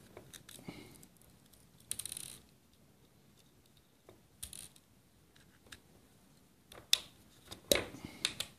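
Fine Torx screwdriver working small screws out of the plastic housing of a GPS dog-collar unit: scattered light clicks and a brief scrape, then a few sharper metallic ticks near the end as the tiny screws are set down on a wooden table.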